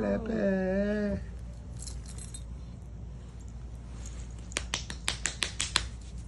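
Sphynx cat giving a long, wavering, complaining meow that ends about a second in. Near the end comes a quick run of about ten sharp clicks.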